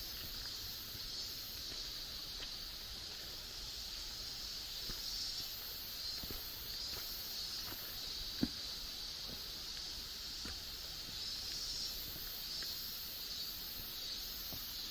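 Insects droning steadily in a high, hissing chorus that swells and fades slowly, with soft footsteps along a forest trail and one louder step or knock about eight and a half seconds in.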